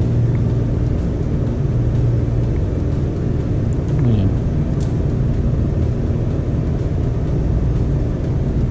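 Bicycle wheel and drivetrain spinning on a stand, a steady low hum whose pitch dips briefly about four seconds in.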